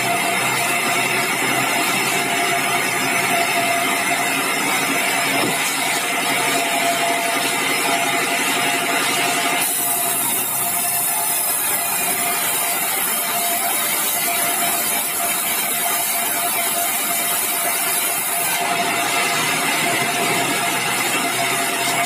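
Sawmill saw running steadily while it cuts bengkirai hardwood into boards and beams: an even mechanical drone with a constant whine. A brighter hiss comes in about ten seconds in and drops away a few seconds before the end.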